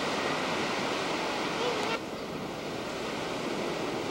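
Waves breaking on a beach, with wind on the camcorder microphone: a steady rushing noise that drops slightly in level about two seconds in.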